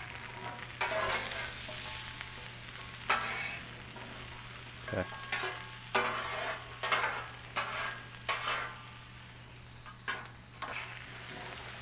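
Sweet potato chunks sizzling in hot olive oil on a Blackstone steel griddle. Metal spatulas scrape and clack against the griddle top again and again as the chunks are stirred and flipped.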